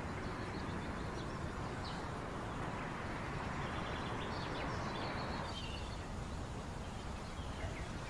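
Steady outdoor background noise with a few faint bird chirps.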